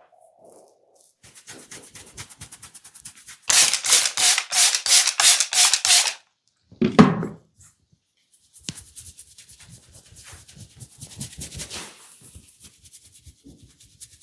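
Head massage: fingers scratching and rubbing the scalp through the hair in rapid rhythmic strokes, loudest in a run of about five strokes a second a few seconds in. A single heavier thump comes a little past halfway, and the quicker, softer rubbing resumes.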